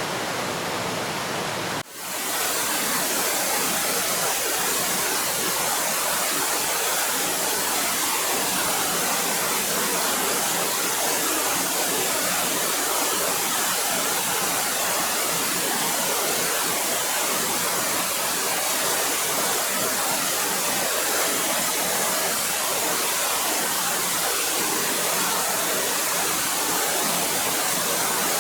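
Waterfall: a steady rush of falling water. It dips briefly about two seconds in, then carries on with more hiss.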